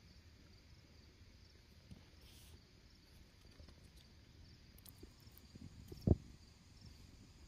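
Quiet outdoor ambience: a faint, steady insect trill with a single soft thump about six seconds in.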